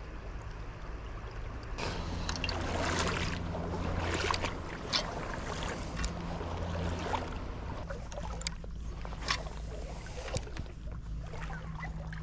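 Wading through creek water: water sloshing and splashing around the legs, swelling about two seconds in, with scattered sharper splashes. A faint steady low hum sits underneath.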